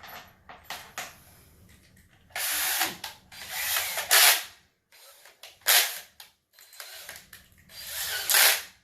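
Power drill driving screws in three bursts: a long run of about two seconds, then a short one and a one-second one near the end, with a ratcheting edge.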